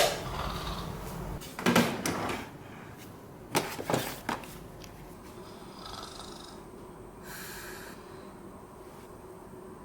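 A sleeping person snoring softly. A sharp click comes at the very start, and louder knocks follow about two and four seconds in.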